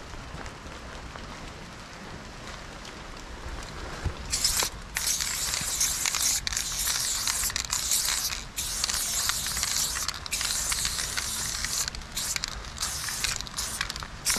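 Aerosol spray paint can hissing as it sprays paint, starting about four seconds in and running in long bursts with short breaks.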